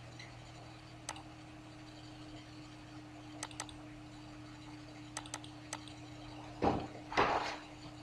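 Computer mouse clicking: a single click, then two quick double-clicks and another single click, over a steady low electrical hum. Near the end come two louder short noises.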